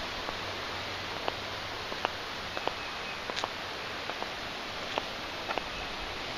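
Steady rushing hiss of a flooded river running fast beneath a bridge, with a scattering of small sharp clicks over it.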